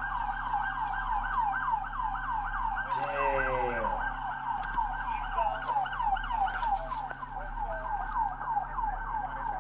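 Emergency vehicle siren on a fast yelp: about four quick falling sweeps a second, repeating steadily. About three seconds in, a short hiss and a lower falling tone cut in briefly.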